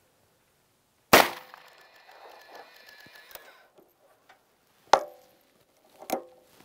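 A single shot from a .44 Special single-action revolver about a second in, a sharp crack with a ringing tail that fades over about two seconds. Near five and six seconds, two sharper, quieter metallic clacks as the recoiled handgun rest is brought back down and the revolver is readied for the next shot.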